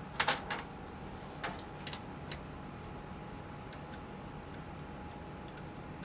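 A few sharp metallic clicks and ticks from a hand tool working the air conditioner's three-way service valve shut, the loudest about a quarter second in. Underneath is the steady hum of the air conditioner running in cooling mode.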